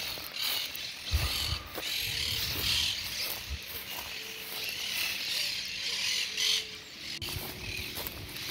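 Footsteps through riverbank brush and grass: irregular rustling swells with a few soft thuds underfoot.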